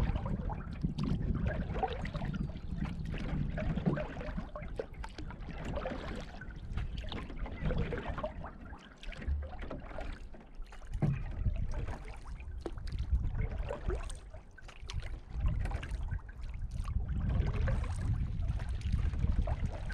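Canoe paddled across calm lake water: paddle dips with water splashing and trickling against the hull, over a low rumble that swells and fades.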